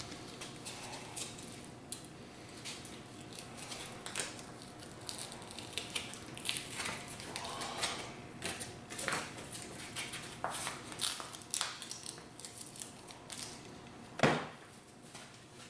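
Hand work on a wooden rifle stock: irregular scraping strokes and light clicks and taps, with one sharp knock about 14 seconds in.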